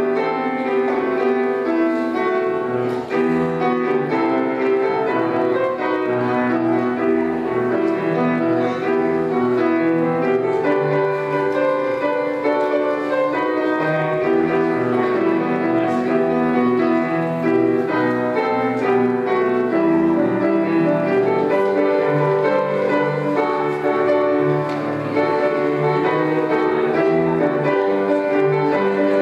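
Instrumental keyboard music with a piano sound, in a steady flow of held chords: the postlude at the close of a church service.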